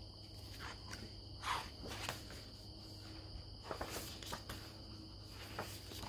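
Crickets trilling steadily, a continuous high-pitched drone, with a few soft rustles and taps as a hardcover picture book is handled and opened.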